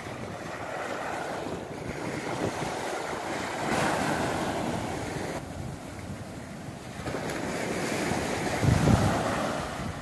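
Sea waves breaking and washing up a sandy beach, a steady rushing surf that swells and ebbs. Wind buffets the microphone in low rumbling gusts, loudest near the end.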